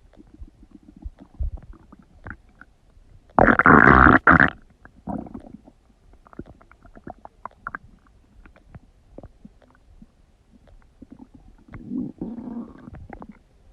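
Human stomach gurgling and rumbling while digesting: many small pops and clicks, with one loud gurgle of about a second about three and a half seconds in and a softer rumble near the end.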